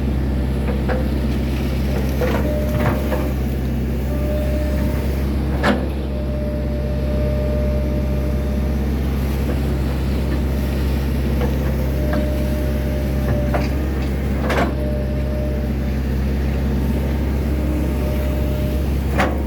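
Hydraulic excavator's diesel engine running steadily under load, with a hydraulic whine that comes and goes and several sharp metallic knocks from the working machine.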